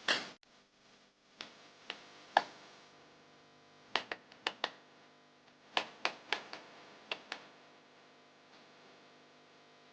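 Sharp clicks and knocks of kitchen utensils: three single knocks, then quick clusters of three or four clicks in the middle, stopping about three-quarters of the way in. A short burst of noise opens the stretch.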